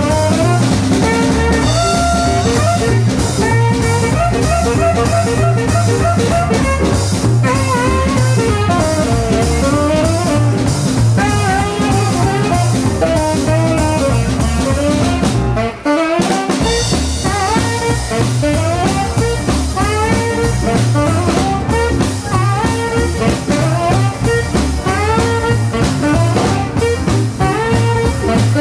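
Live band playing an instrumental shuffle: a tenor saxophone solos in bending, bluesy phrases over drum kit, upright bass and piano. The band drops out for a moment about halfway through, then comes back in.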